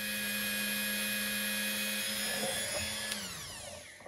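Dremel rotary tool running at a steady whine as its small abrasive disc grinds the cold bluing off the top of a steel machinist clamp. About three seconds in it is switched off and its pitch falls away as it spins down.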